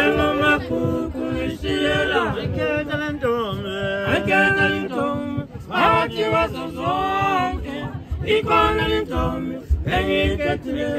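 A group of men singing a cappella, several voices in harmony.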